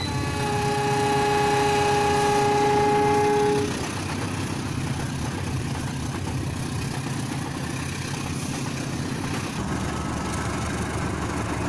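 Rail King battery toy train running on plastic track, a steady rumble of its small motor and wheels. For about the first three and a half seconds its electronic horn sounds one long held note.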